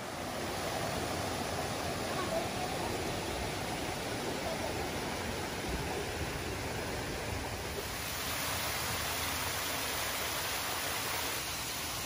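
Steady rush of running water from a mountain stream and a small waterfall, its tone shifting slightly twice in the second half.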